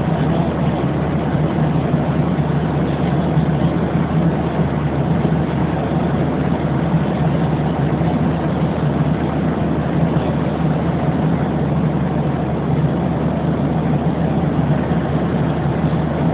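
Steady cabin noise of a jet airliner in cruise flight: engine and airflow noise with a low, even hum, unchanging throughout.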